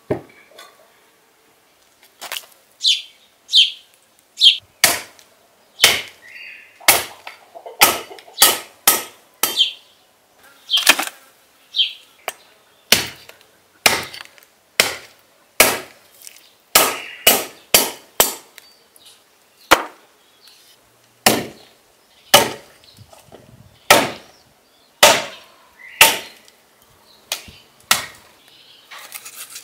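Hatchet chopping through a rack of raw lamb ribs on a wooden stump block. A long run of sharp chops comes at roughly one a second, some in quicker pairs.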